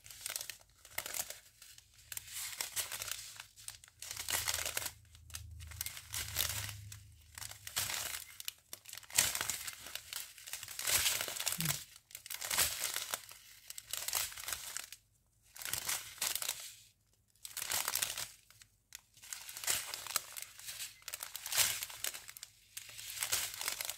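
Strip of small plastic bags of round diamond-painting drills crinkling as it is unfolded and turned over in the hands, in short irregular bursts roughly once a second.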